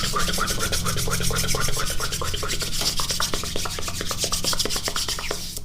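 Close-miked ASMR mouth sounds: a fast, even run of wet clicks, about ten a second, that stops just before the end.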